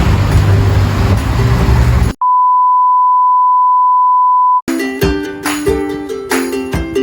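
Road and engine noise from a moving songthaew for about two seconds, cut off abruptly by a single steady high beep lasting about two and a half seconds. Then plucked-string background music, like a ukulele, starts and runs on.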